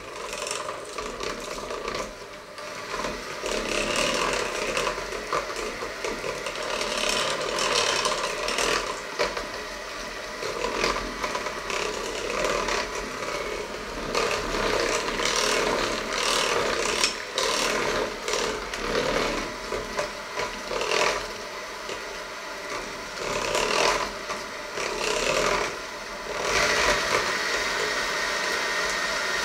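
Electric hand mixer running, its steady motor whine under the irregular scrape and clatter of the metal beaters churning a liquid mixture against the sides of a stainless steel bowl.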